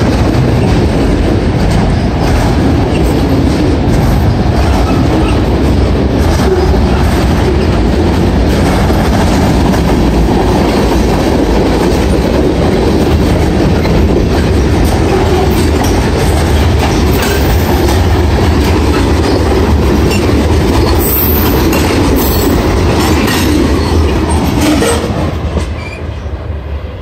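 Freight train of autorack cars and covered hoppers rolling past close by, a steady loud rumble with steel wheels clattering over the rail joints and a few short high squeals about two-thirds through. The noise falls away near the end as the last car passes.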